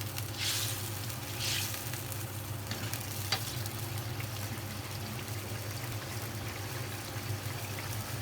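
Mapo tofu simmering and sizzling in its sauce in a pan, with a few stirring swishes in the first two seconds and a single sharp click about three seconds in, over a steady low hum.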